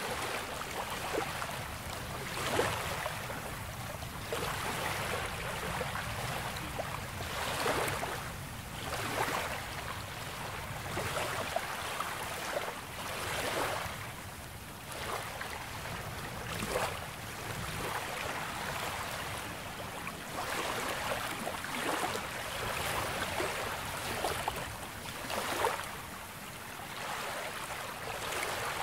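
Small waves of a calm sea splashing and washing onto the shore, with a soft splash every second or two over a steady wash of water.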